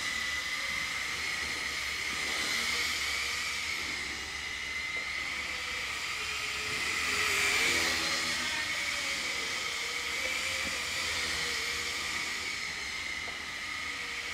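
MJX F647 micro RC helicopter, a 22 cm single-rotor fixed-pitch model, in flight: the steady high whine of its small electric motors and rotor. It grows louder a little past the middle as the helicopter passes close, then eases off again.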